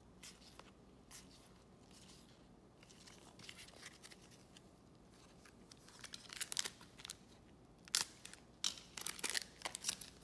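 Trading cards sliding against each other in gloved hands, then from about six seconds the crinkling and tearing of a plastic card-pack wrapper being pulled open, in a quick run of sharp crackles.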